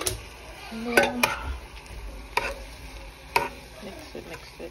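A spoon stirring seasoned ground meat in a pan, knocking and scraping against the pan about five times, over a light sizzle.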